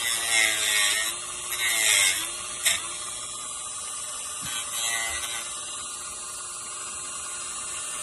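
Dremel rotary tool running with a steady high whine, cutting into a hardened rubber boot in three short passes: at the start, about two seconds in and about five seconds in. Each time it bites, its pitch dips and a grinding rasp rises. A single sharp click sounds a little before three seconds in.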